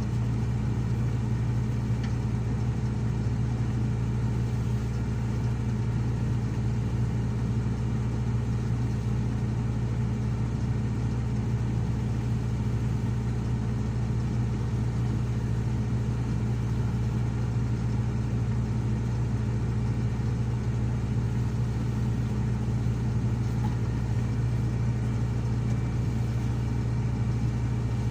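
Diesel engine of heavy earthmoving machinery running steadily at an even speed: a constant low hum with no revving.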